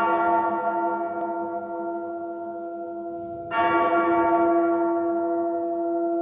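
A bell struck twice and left to ring: the first strike is already ringing at the start and slowly fades, and a second strike comes about three and a half seconds in and rings on.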